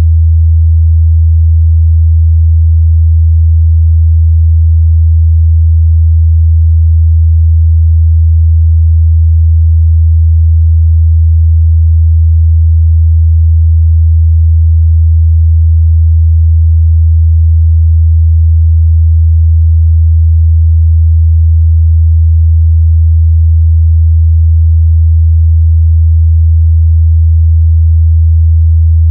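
A pure 81 Hz sine-wave test tone, a steady low hum held at a constant loud level.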